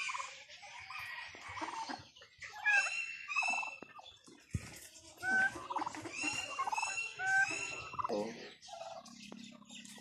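Domestic turkey toms gobbling repeatedly, in two bouts a couple of seconds apart.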